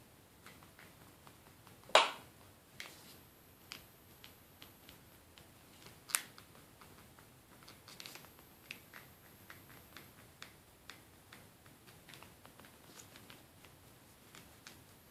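Body of a Xiaomi Redmi Note 2 smartphone creaking and crackling as it is handled: a string of small clicks, with a louder crack about two seconds in and another about six seconds in. The creaking is a known flaw of this phone's build.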